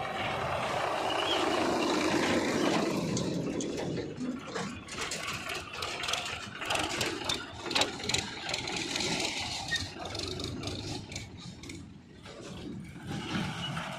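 Diesel engine of a JCB 3DX backhoe loader revving under load, its pitch falling and rising in the first few seconds. A run of sharp knocks and clatter follows over the engine.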